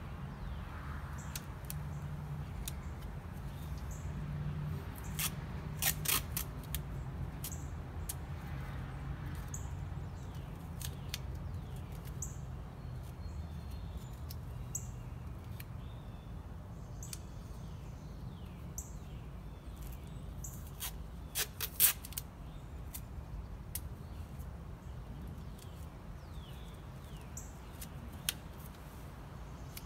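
Small birds chirping repeatedly over a steady low hum, with scattered light clicks and two brief clusters of sharp taps, about six seconds in and again about 22 seconds in, from hands working on a car wheel rim.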